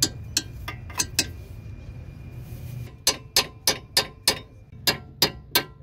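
Hammer striking the guide pin of a disc brake caliper, metal on metal: a few taps, a pause, then a quicker run of about eight taps at roughly three a second.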